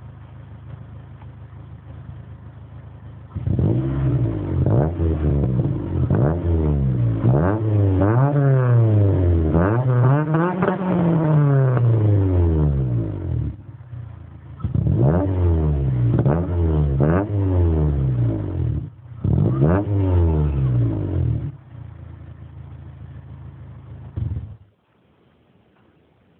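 Honda Civic's D15B2 1.5-litre four-cylinder, breathing through a racing exhaust manifold and HD muffler, idling and then revved up and down again and again in quick blips, with two short pauses at idle between the bursts. It settles back to idle and then cuts off suddenly near the end.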